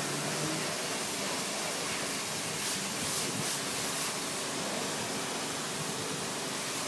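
High-pressure water spraying steadily from a self-service car wash wand, an even hiss.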